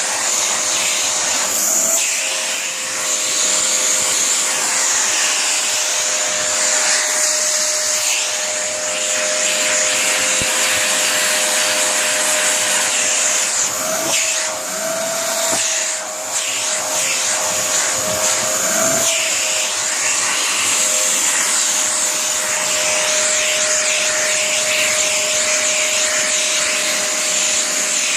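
Vacuum cleaner running steadily, its motor tone wavering briefly a few times as the load on it changes.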